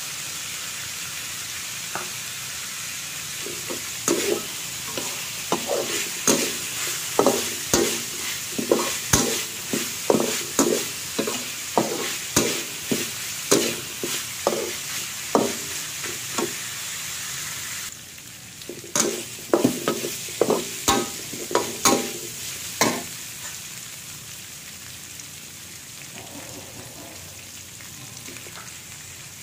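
Metal spatula scraping and tossing meat and green vegetables around a metal wok over a steady sizzle, about one and a half strokes a second from about four seconds in. The sizzle drops suddenly about two-thirds of the way through, a second short run of stirring strokes follows, and then a quieter sizzle carries on.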